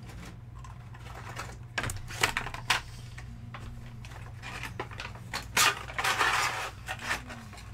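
Model train box and packaging being handled as a locomotive is packed back: a few sharp clicks and knocks, then about a second of rustling around six seconds in, over a low steady hum.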